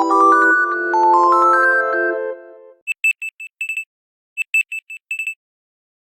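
End of an Android phone's synthesized ringtone melody, fading out, followed by a high electronic beep tone: two quick runs of about six short beeps each, with a short pause between them.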